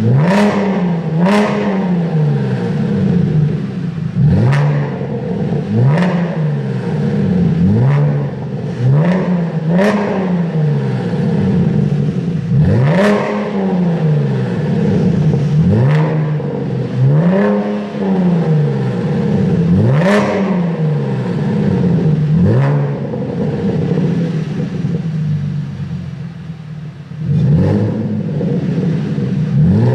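A 2010 Chevrolet Camaro V6 is revved repeatedly in short blips through a sport exhaust, about a dozen times. Each blip rises sharply in pitch and falls back to idle, and the engine idles longer without revving for a few seconds near the end. The exhaust is a high-flow sport system with the catalytic converters kept in place.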